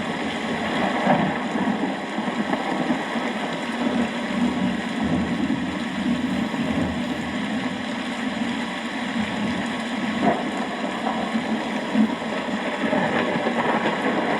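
Steady rain falling, with a low rumble of thunder swelling about four to seven seconds in.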